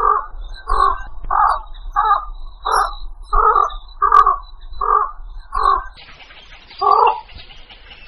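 Blekok heron calling: a run of short, coarse calls about two-thirds of a second apart, ten in all, with a longer pause before the last. It is a lure-call (pikat) recording meant to draw herons in. A steady hiss comes in after about six seconds.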